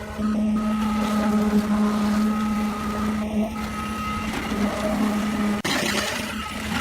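A machine's motor running steadily with a constant-pitched hum, broken briefly about two-thirds of the way through.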